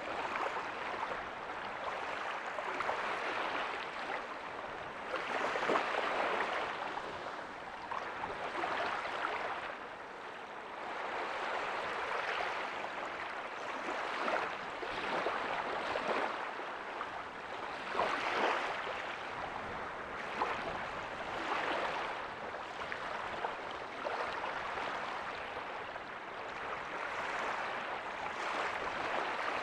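Small ocean waves breaking softly on a beach: a continuous wash of surf that swells and eases every few seconds.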